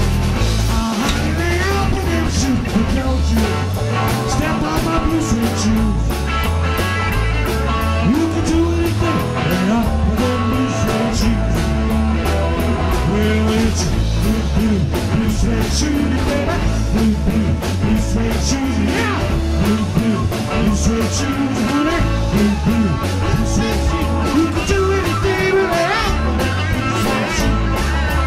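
A live rock-and-roll band playing loudly, with electric guitars, bass guitar and drums, and a lead guitar line bending in pitch.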